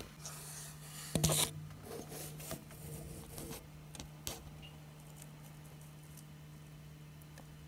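Handling noises: a loud rub and clatter about a second in, a few lighter rubs and clicks over the next few seconds, then only a steady low hum.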